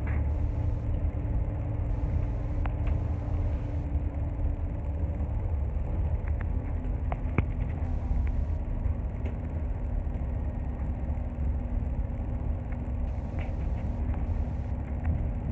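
Tram replacement double-decker bus on the move, heard from the upper deck: steady low engine and road rumble with a faint steady hum that drops slightly in pitch about six seconds in, and a few faint rattles.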